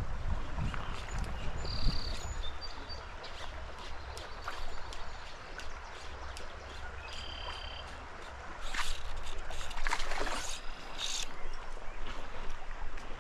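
Shallow spring creek running over a gravel riffle, a steady wash of water, with a few short high bird notes and scattered light clicks; the water noise swells louder for a couple of seconds about nine seconds in.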